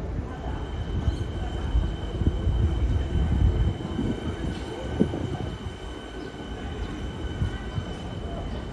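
Electric suburban train on the line: a low rumble of wheels on rails that is loudest a few seconds in and then eases off, with a steady high whine over it.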